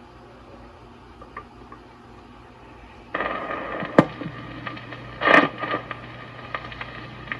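Vintage record changer playing a 16 RPM record through its own speaker. About three seconds in, hum and surface noise suddenly come in, then a sharp needle click and a short louder crackle a second or so later, as the stylus settles into the groove.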